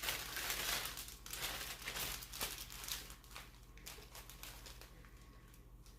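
Plastic bag crinkling as it is handled, with small rustles and clicks that are busiest in the first few seconds and thin out towards the end.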